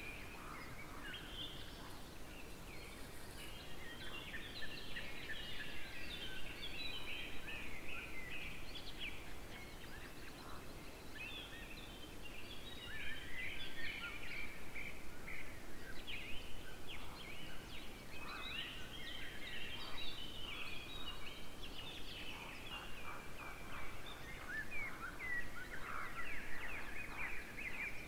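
Wild birds singing and calling: a dense stream of quick chirps, trills and rapid repeated notes over a faint steady background hiss.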